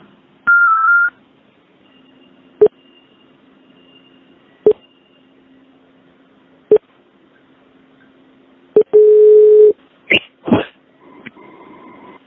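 Electronic tones and clicks on a telephone line: a short wavering high beep, sharp clicks about every two seconds, then a loud steady lower beep lasting under a second about nine seconds in, followed by a few brief chirps.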